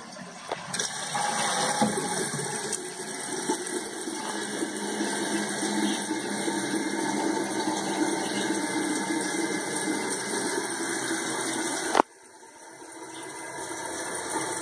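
Flush and refill of an open 1993 Kohler Wellworth Lite toilet tank: a steady rush of water, which cuts off sharply about twelve seconds in. A quieter hiss of the tank refilling then builds again near the end.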